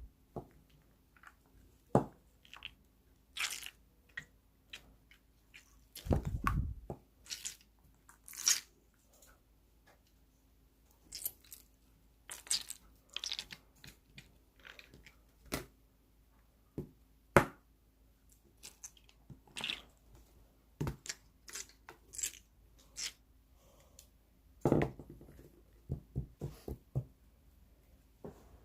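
Slime being squeezed and worked by hand, making irregular wet squelching, sucking and popping sounds with sharp little clicks here and there.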